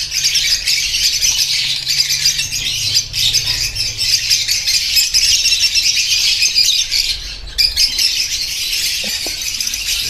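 Many lovebirds chattering and calling at once: a dense, high-pitched din of overlapping calls, with a brief lull about seven seconds in.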